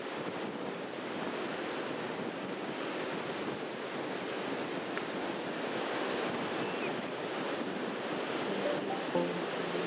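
Ocean surf washing steadily onto a beach, mixed with wind buffeting the microphone. Faint music comes in near the end.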